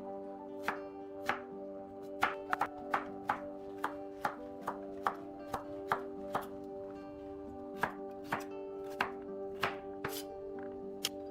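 Sharp knocks at an uneven pace, about one or two a second, over steady held tones like a sustained chord of background music.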